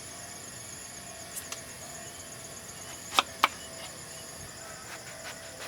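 Insects chirring steadily with a high, fast-pulsing trill. Two sharp clicks come close together about three seconds in.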